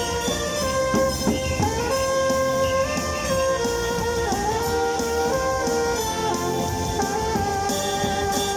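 Live band music: a melody of long held notes moving up and down step by step over a steady accompaniment.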